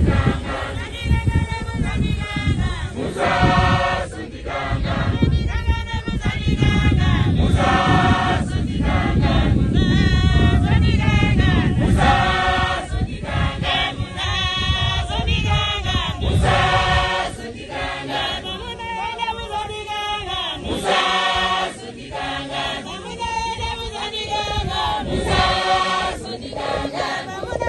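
A large congregation singing a hymn together, unaccompanied, in short phrases. A low rumble sits under the voices until about two-thirds of the way through, then drops away.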